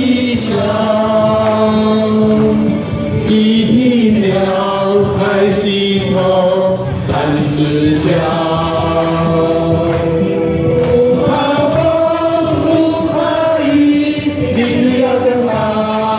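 A mixed choir of amateur men and women singing a Taiwanese folk song together, moving through long held notes.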